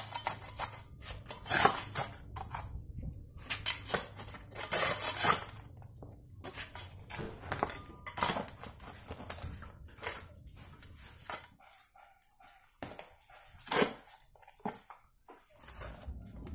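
Shovel digging in damp earth and rubble, its metal blade scraping and clinking against stones in irregular strokes, with a lull about two-thirds of the way through.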